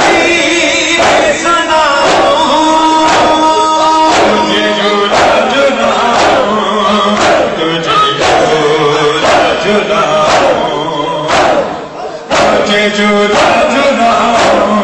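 Noha, an Urdu lament, sung by a male voice with men's voices joining in, over steady rhythmic chest-beating (matam), a sharp stroke about every three-quarters of a second.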